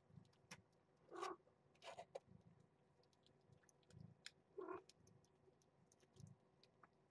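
Kittens and their mother eating wet cat food off a plate, with faint scattered clicks of eating and of a fork on the plate. Two short, louder sounds come about a second in and again a little after the middle.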